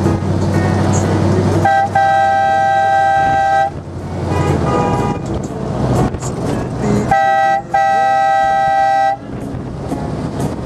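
A vehicle horn honking in a pattern: a quick tap followed by a long blast of about two seconds, a fainter short toot, then another quick tap and a blast of about a second and a half. Under it, a motor vehicle's engine runs steadily at low speed.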